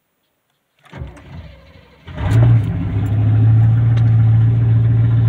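Chevy 454 (7.4 L) big-block V8 turning over on the starter for about a second, then catching about two seconds in and settling into a loud, steady run through an exhaust left open before the catalytic converter. The uncorked big-block sounds very loud even inside the closed cab.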